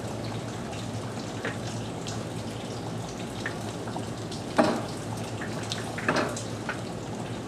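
Steady rain patter with scattered drips. Two sharp metal clanks, about a second and a half apart in the second half, as a wire cooking grate is set down into a ceramic kamado grill.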